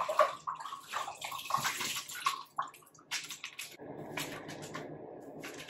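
Hands splashing and scooping water in a bowl, with a run of irregular splashes. After about four seconds it changes to a steadier wet sound as the water is squished into soaking-wet hair to help spread the conditioning product.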